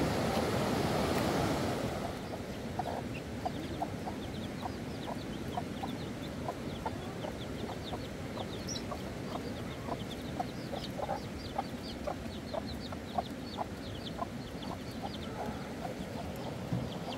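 Chickens clucking in many short, quick calls, some low and some high, over a steady rushing background. A louder rush of noise drops away about two seconds in.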